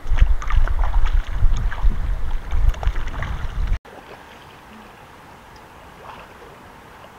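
Water splashing and dribbling as a puppy is washed by hand in river water, with wind rumbling on the microphone. A little under four seconds in the sound cuts off abruptly to a much quieter, faint background.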